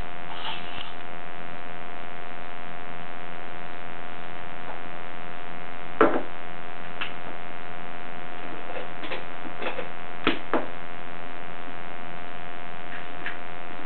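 Steady electrical mains hum, with a handful of short soft clicks and smacks from a ferret eating banana: one about halfway through, a few more shortly after, and a pair near the end.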